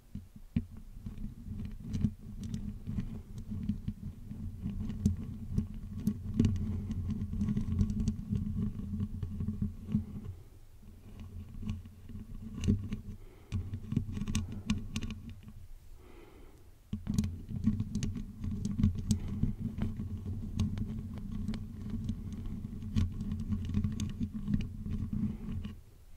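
Fingernails and fingertips scratching and rubbing directly on a microphone's mesh head: a dense, scratchy rumble full of sharp clicks. It drops to quieter, sparser scratching for several seconds midway, then resumes.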